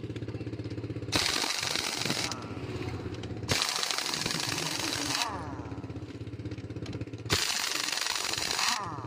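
Heavy-duty pneumatic impact wrench hammering truck wheel nuts loose in three bursts of one to two seconds each. A steady engine hum runs underneath.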